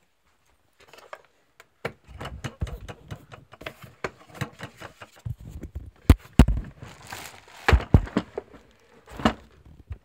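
A plastic cat litter tray being handled and moved: a dense run of clicks, knocks and rattles, with several heavier thumps about six to eight seconds in and once more near the end.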